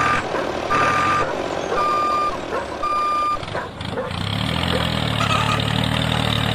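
Vehicle reversing alarm beeping about once a second, four beeps in all. From about four seconds in, a low steady motor hum takes over.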